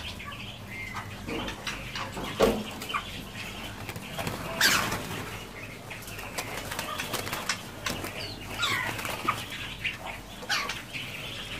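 Many caged songbirds calling together: scattered short chirps and whistled rising and falling notes. Two sharp clicks come about two and a half and four and a half seconds in.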